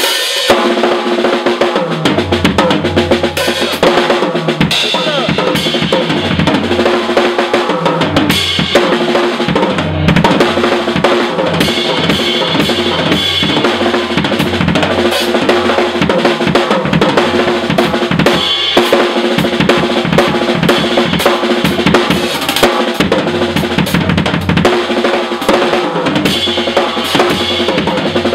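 A live band playing in rehearsal, with a drum kit loudest: bass drum, snare and rimshots over steady bass notes. The band plays on through a solo that a player has just called for.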